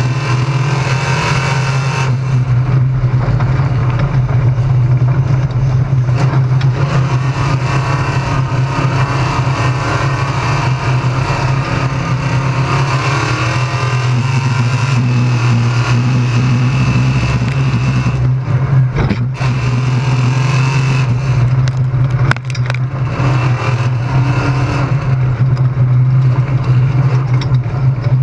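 Race car engine running steadily at speed, heard from inside the caged cockpit, with rushing noise over it and a couple of sharp knocks about two-thirds of the way through.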